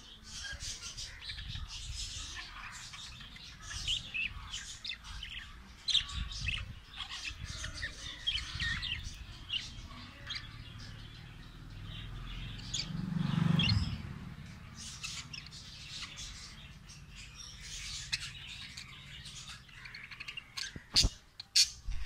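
A group of budgerigars chirping and chattering, with many short overlapping chirps throughout. About halfway through there is a brief low rumble, and near the end a few sharp clicks.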